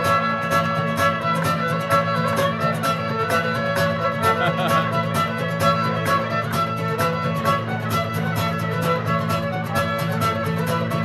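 Live fiddle playing an Irish traditional tune over a steady strummed guitar accompaniment.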